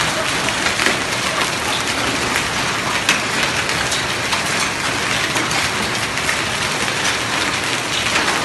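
Rain and hail falling hard on stone paving: a dense steady hiss full of sharp ticks from hailstones striking.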